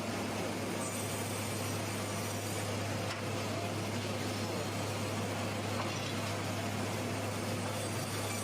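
Sawmill machinery running steadily, a constant low hum under a continuous noisy rush.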